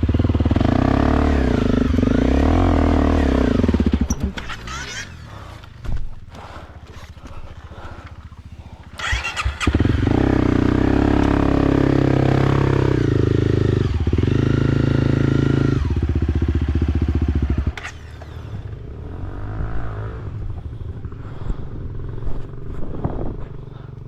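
Off-road vehicle engine revving hard under load as it climbs a rutted trail. There are two long bursts of hard throttle, the pitch rising and falling: one at the start and one from about ten seconds in, which cuts off sharply near eighteen seconds. The engine is lower and quieter between them.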